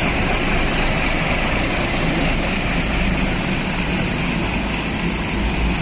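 Intercity coach's diesel engine running with a steady low rumble as the bus moves off slowly, heard from just behind it.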